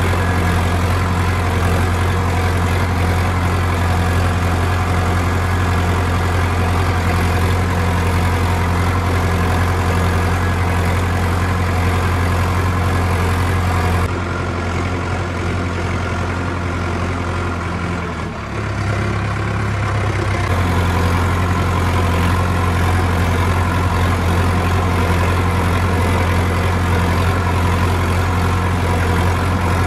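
Sonalika DI 750 Sikander tractor's diesel engine running at a steady speed with a deep, even note; just past halfway it dips briefly and its pitch shifts for a couple of seconds before settling back.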